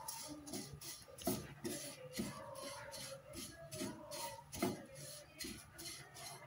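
Spatula stirring dry rolled oats in a nonstick frying pan: light scraping and clicking strokes against the pan, several a second, as the oats are dry-roasted.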